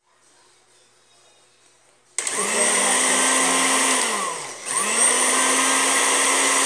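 Electric countertop blender with a glass jar grinding chocolate sandwich cookies into crumbs. Its motor switches on about two seconds in and runs steadily, winds down briefly about four seconds in, then comes straight back up to speed.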